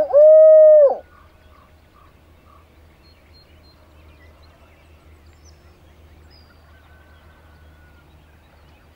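The long, drawn-out final hoot of a hunter's barred owl locator call, held for about a second, ending the call. Afterwards there are only faint, distant turkey gobbles answering it.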